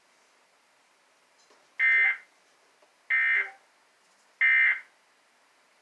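Emergency Alert System end-of-message signal: three short bursts of screeching two-tone digital data, each about half a second long and about 1.3 seconds apart. They mark the end of the alert broadcast.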